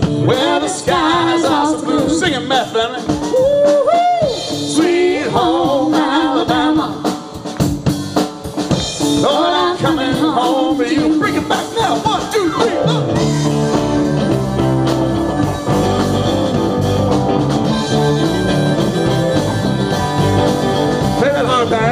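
Live rock band playing: a singer over electric guitar, bass and drums, then about thirteen seconds in the singing stops and the band carries on with a fuller instrumental passage with heavier bass.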